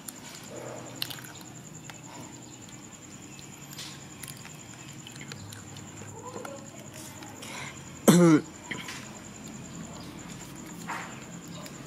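Foil snack bag crinkling with scattered faint clicks as it is handled, and one short, loud vocal sound about eight seconds in.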